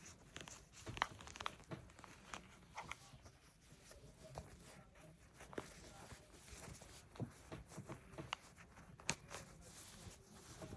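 Faint handling noise from the case and its lanyard: soft rustling with scattered small clicks, and one sharper click about nine seconds in.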